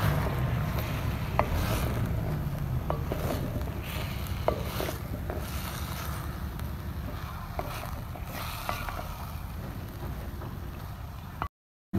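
A wooden spoon stirring chicken and chopped onions in a clay cooking pot, with scattered short clicks and scrapes of the spoon against the pot. A steady low wind rumble on the microphone runs underneath. The sound drops out briefly just before the end.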